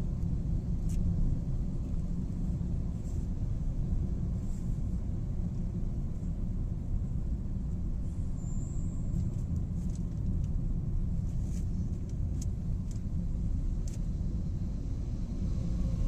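Steady low rumble of a car travelling at highway speed, heard from inside the cabin: tyre and engine noise, with a few faint ticks now and then.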